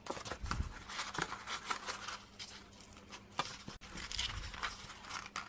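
A strip of corrugated cardboard being folded and creased by hand, making irregular short rustles and scrapes.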